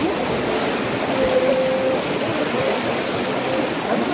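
Floodwater sloshing and splashing steadily around the legs of a group of people wading through it, a continuous rushing wash.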